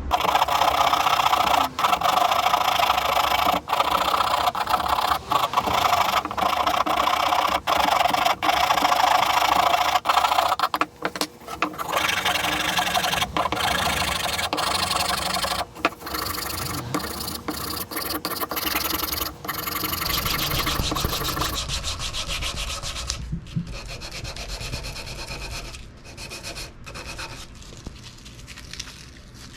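Hand rasp or file scraping across a wooden axe handle in repeated strokes, cutting a rough grip into the wood. The strokes turn lighter and quieter about two-thirds of the way through.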